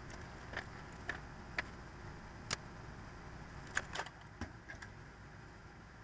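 Scattered light clicks and taps, about nine in all, as small tools and parts are handled and set down on a workbench, among them a spool of solder put down on the cutting mat.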